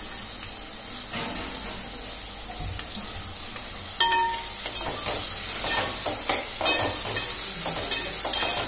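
Chopped onions and green chillies sizzling in hot oil in an aluminium pot. From about four seconds in, a spoon stirring them clicks and scrapes against the pot.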